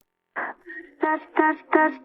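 Isolated pop vocal track: a short noisy burst, then three short clipped notes sung on the same pitch, evenly spaced, leading into the verse.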